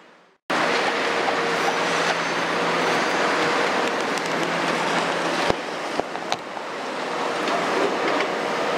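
Kobelco 350 excavator's Hino J08 six-cylinder diesel running with its hydraulics working as it dumps a bucket of soil into a tipper truck's body and swings back: a steady hum over a rushing noise, with two sharp knocks a little past the middle. The sound cuts in abruptly about half a second in.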